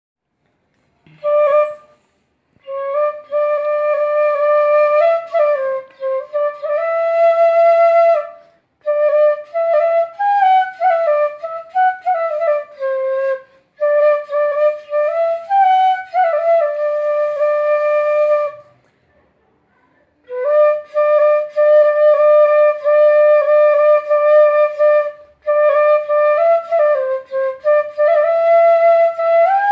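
Bansuri, an Indian bamboo flute, playing a solo melody: long held notes joined by slides and small ornaments, in phrases with brief breath pauses, the longest about two-thirds of the way through.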